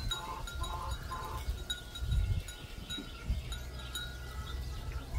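Wind chimes ringing, several long clear tones overlapping, with a few soft hen clucks in the first second and a low rumble underneath.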